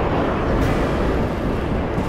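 Wind blowing across the microphone with surf washing in behind it: a steady low rushing noise.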